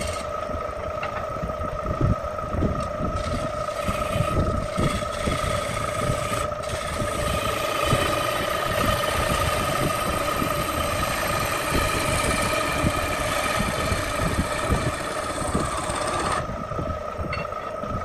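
Belt-driven wood lathe running with a steady hum while a turning gouge cuts the spinning wooden piece, giving a scraping hiss with occasional low knocks. The cutting stops about two seconds before the end, leaving only the lathe's hum.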